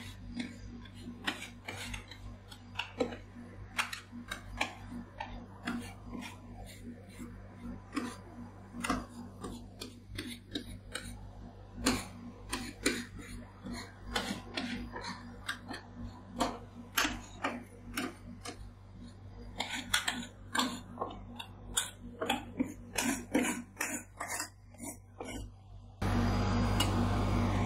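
Steel scrapers tapping and scraping on the steel cold plate of a rolled ice cream machine, chopping and spreading a frozen mixture: many quick irregular sharp clicks over a steady low hum. Near the end the tapping stops and a louder steady sound begins.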